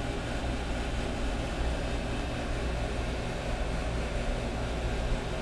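Steady low mechanical hum with a faint hiss, unchanging throughout.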